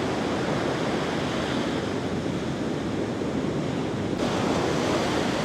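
Heavy ocean surf breaking and rumbling in a steady wash, swelling a little near the end, with wind buffeting the microphone.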